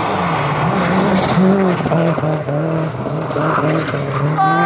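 Rally car racing uphill past the listener, its engine revving hard and rising and falling in pitch again and again as the driver shifts gears and lifts off through the bend.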